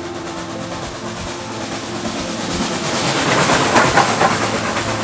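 Nickel Plate Road 765, a 2-8-4 Berkshire steam locomotive, passing close with its train. It grows louder to a peak about three and a half to four and a half seconds in as the engine and tender go by, with a quick regular beat of exhaust and wheels on the rails.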